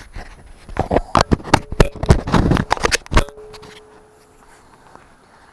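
A rapid, irregular run of sharp clicks and clanks lasting about two seconds, followed by a faint steady ringing tone.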